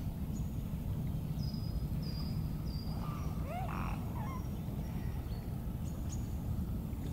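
Water birds calling on a lake: a few short high piping notes and one louder, lower call about three and a half seconds in, over a steady low rumble.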